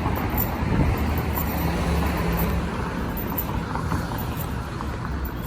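Road traffic: a motor vehicle running past with a low engine hum over steady road noise.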